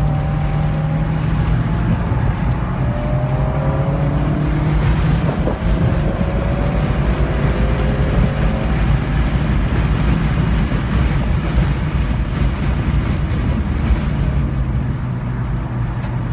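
2015 Volkswagen GTI's turbocharged 2.0-litre four-cylinder heard from inside the cabin at full throttle, its pitch climbing, breaking about five seconds in as the DSG gearbox shifts up, then climbing again, under heavy wind and road noise. Near the end the engine eases off as the throttle is lifted.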